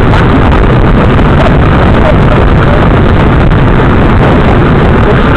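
Loud, steady wind noise buffeting the microphone of a bike-mounted rear camera light while the bike is ridden along the road.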